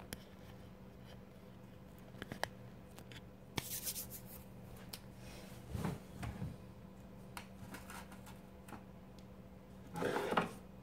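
Hands handling craft supplies and a picture frame on a wooden side table: scattered light clicks and taps, with rustling and sliding noises around four, six and ten seconds in, the last the loudest as the frame is moved. A steady low hum lies underneath.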